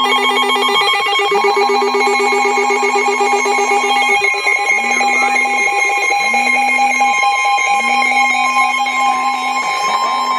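Emergency alert attention signal: a steady two-tone alarm, with a buzz beneath it pulsing in a long, short, short pattern like a phone's Wireless Emergency Alert vibration. It signals a hurricane warning.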